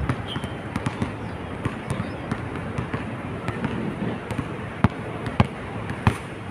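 Basketball bouncing three times on an outdoor hard court near the end, the thuds about half a second apart. Fainter scattered clicks sit over a steady outdoor background hiss.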